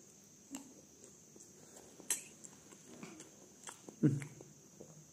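Quiet eating sounds: a few scattered light clicks and taps of a spoon and glass against a stainless steel pot, the sharpest about two seconds in, and a brief low mouth sound about four seconds in.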